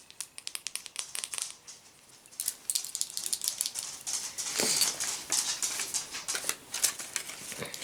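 Paper and plastic being handled close to the microphone: quick taps and crinkles at first, then, after a short pause, a longer stretch of rustling and crinkling.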